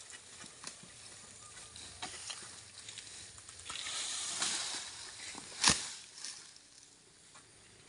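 Oil palm fronds rustling high in the crown of the tree, with small scattered crackles. About three-quarters of the way through comes one sharp, loud crack.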